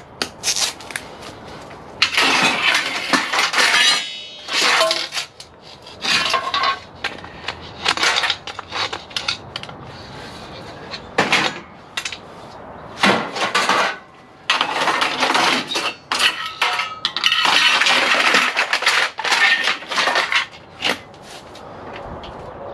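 Lengths of extruded 6063 aluminum scrap clattering and clanking against each other as they are handled, in irregular bursts of metallic rattling, some brief and some lasting a couple of seconds.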